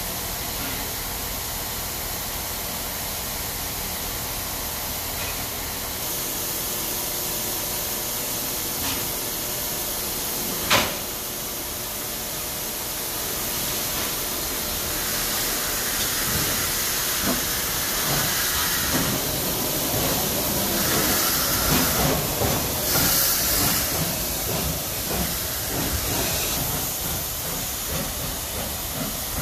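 Ol49 steam locomotive standing with steam hissing steadily, and one sharp clank about eleven seconds in. From about halfway the steam hiss grows louder and rougher, with low rumbling under it.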